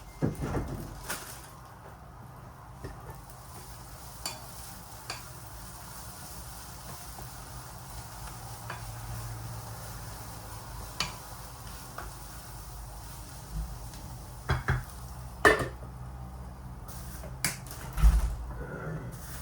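Food sizzling in a pan, a steady hiss, with scattered clinks and knocks of a utensil against the pan or dishes; the two loudest knocks come near the end.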